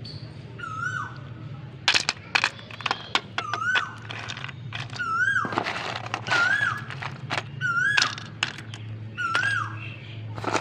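Dry multani mitti (fuller's earth) chunks cracking and crumbling as hands break and stir them in a cardboard box, with sharp snaps, the loudest about two seconds in. An animal's short rising-and-falling call repeats about every second and a half, with higher chirps between.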